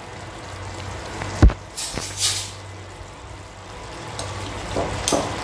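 Thick chilli-garlic paste bubbling and sputtering in a nonstick kadhai, over a low steady hum. A single thump comes about a second and a half in, followed by a couple of short hissing rustles.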